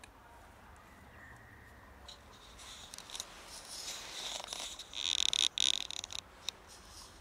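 Cat crunching dry kibble from a plastic tub: small crisp clicks and crackles that build from about two seconds in, with a louder scratchy rustle around five seconds in.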